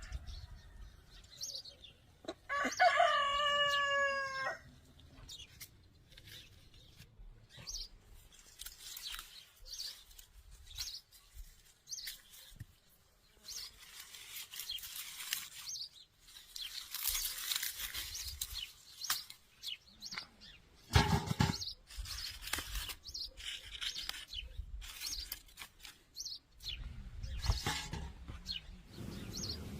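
A rooster crows once near the start, a single call about two seconds long. The rest is scattered clicks, rustles and knocks from handling things, with one sharp knock about two-thirds of the way through.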